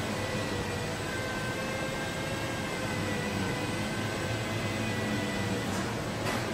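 Steady hum and hiss of a car assembly plant: ventilation and machinery running, with a few steady tones held throughout.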